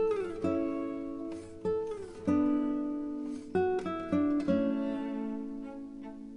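Background music: a plucked acoustic guitar playing a slow melody of single notes that ring out and fade, with two notes sliding down in pitch, one right at the start and one about two seconds in.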